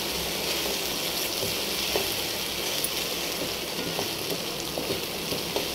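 Thick masala paste frying in oil in a pan while a spatula stirs it: a steady sizzle with a few light scrapes. The paste is being cooked until the oil separates.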